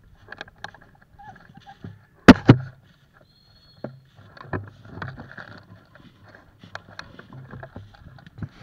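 Footsteps and rustling in deep dry fallen leaves, irregular and close to the microphone. Two sharp, loud knocks come close together a little over two seconds in.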